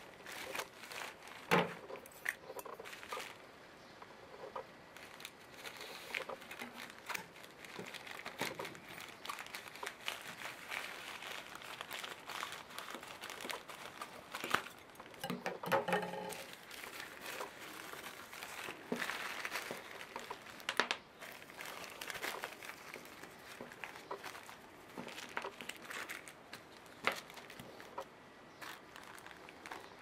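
Plastic packaging crinkling and rustling as a plastic mailer and clear plastic bags are handled and opened, with irregular crackles and small clicks throughout and a louder spell about halfway through.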